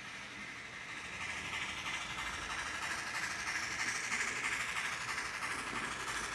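Model train running along the layout's track, a steady whirr and rattle of motor and wheels that grows louder about a second in as the train comes closer.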